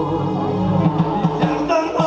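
A live band playing through the stage PA system, heard from among the standing audience.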